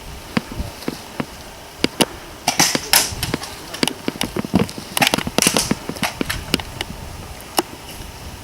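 Airsoft guns firing in scattered, irregular single pops, with a few short bursts of rustling.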